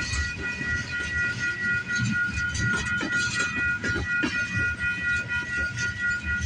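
CP freight train rolling slowly past, with a low rumble, irregular wheel clicks over the rail joints and a steady high-pitched tone over it.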